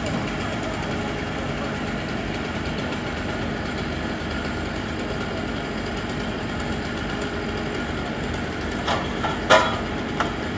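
Steady running of a truck-mounted grapple crane's engine powering its hydraulics as the boom swings the grapple. Near the end come three sharp knocks, the middle one the loudest.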